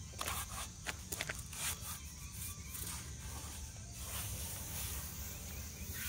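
Hands rubbing back and forth and pressing on a SeaDek EVA foam pad stuck to a skid steer's side panel, working the air bubbles out of the adhesive. A few short clicks and scuffs in the first two seconds, over a low steady outdoor rumble.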